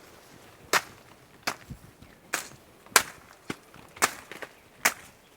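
Footsteps on dry ground: about seven sharp crunching steps at an even walking pace, roughly one every 0.7 s.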